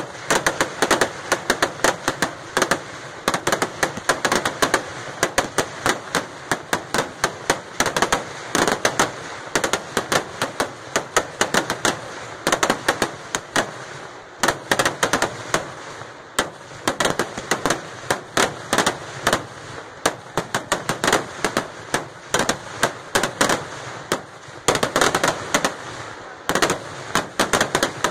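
Fireworks barrage (Kerala vedikettu): aerial shells going up and bursting in quick succession, a dense run of sharp bangs several a second with a few brief lulls.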